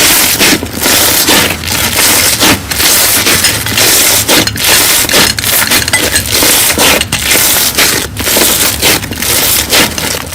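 Crunchy slime being squeezed and pressed by hand, giving a loud, dense crackling with many small sharp crunches.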